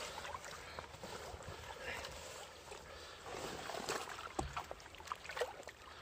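Lake water sloshing and lapping against a fabric retention sling as it is lowered into the water and a large catfish is released from it, with scattered small splashes and taps.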